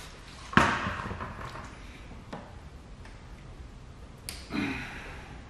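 Handling noises as wet paint protection film is pulled and stretched by hand over a steel bumper: a sharp knock about half a second in, then a few fainter ticks and a short rustle near the end.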